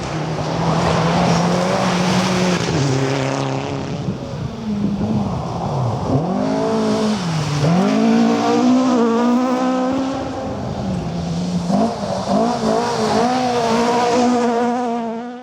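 A car driven hard on a gravel forest rally stage, its engine revving and dropping sharply in pitch a few times as it brakes and shifts down, then climbing again through the gears. The sound cuts off abruptly at the end.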